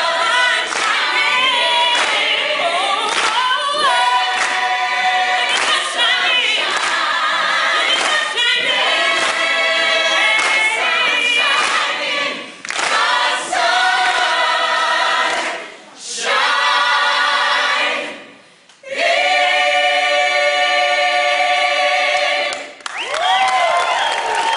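A musical theatre cast singing together in chorus, with a few short breaks and a long held chord near the end.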